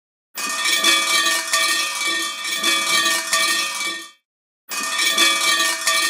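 Japanese Shinto shrine suzu, a cluster of round crotal bells, jangling as it is shaken by its rope. It rings in two bouts: a long shake of about four seconds, a short pause, then a second shake.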